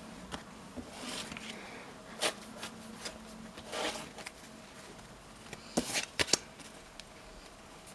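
Playing cards being gathered up from a spread on a windowsill and handled into a deck: soft sliding and swishing of cards, with scattered light taps and a quick run of sharp clicks about six seconds in.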